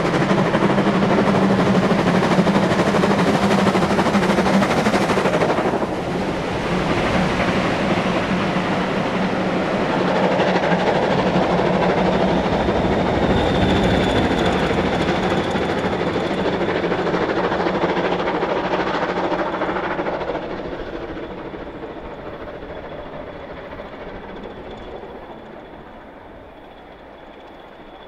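LMS Jubilee class 4-6-0 steam locomotive 45596 Bahamas working hard as it passes close by with its train, followed by the coaches rolling over the rails. The sound fades steadily from about twenty seconds in as the train draws away.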